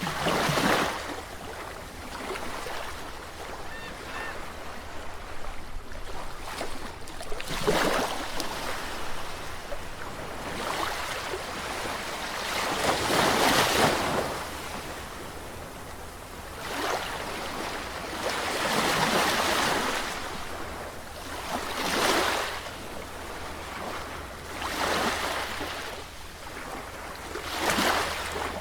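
Sea waves breaking and washing in, a swell of surf every few seconds (about eight in the span), each rising and falling away over a second or two, over a constant background hiss of water.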